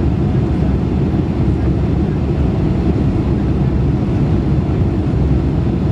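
Steady cabin noise inside a Boeing 747-400 in flight on approach with flaps extended: an even, mostly low rumble of engines and airflow, unchanging throughout.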